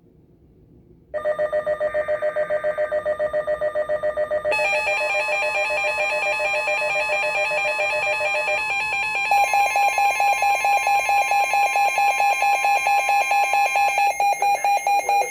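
A Midland weather alert radio's built-in alarm going off for a severe thunderstorm warning: fast electronic beeping in several tones, starting about a second in and switching pattern a few times. Beneath it for most of the alarm runs a steady tone, the NOAA Weather Radio warning alert tone.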